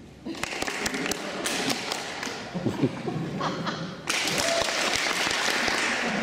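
Audience clapping: scattered individual claps with some voices among them, then a full burst of applause that starts suddenly about four seconds in.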